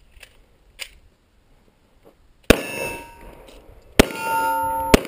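Three 9mm pistol shots from a Smith & Wesson M&P9 Pro, the first about two and a half seconds in and the next two a second apart. After each shot a hit steel target rings with a clear, lingering clang.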